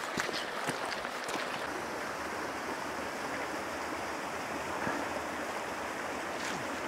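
Shallow rocky stream rushing over stones: a steady wash of running water. A few footsteps on gravel are heard in the first second or so.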